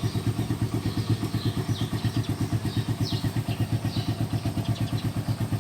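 Yamaha R15's single-cylinder engine idling through an aftermarket Akrapovic exhaust pipe, a steady, even, rapid pulsing.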